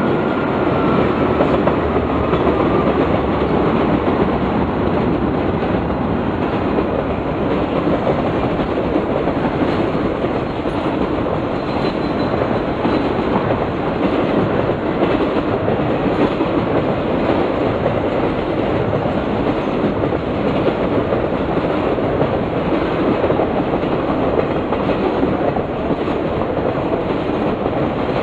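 Triple Crown RoadRailer intermodal train rolling past at speed: a steady, loud rumble and clatter of wheels on the rails. In the first few seconds there is a faint falling whine as the two GE C40-9W diesel locomotives go by.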